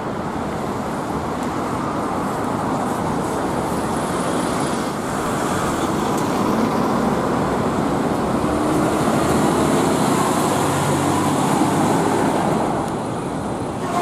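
City road traffic: a bus and heavy trucks driving past, engine and tyre noise, getting louder through the middle as a large vehicle comes close.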